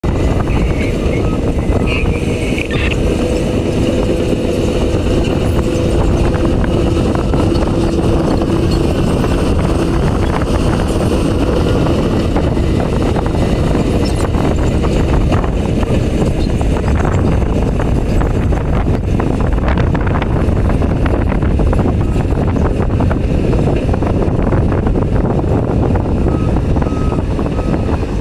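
Diesel engine and hydraulics of an excavator running steadily under load while it loads ore, with a steady whining tone for about the first ten seconds. A faint repeating backup beeper starts near the end.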